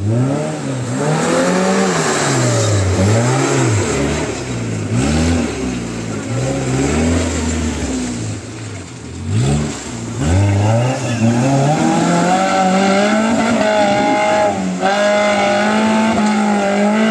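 Maruti Suzuki Gypsy engine revving up and down repeatedly as the vehicle works through a muddy off-road section. From about ten seconds in it is held at high revs under load as it climbs a steep dirt slope, with a brief dip in revs near fifteen seconds.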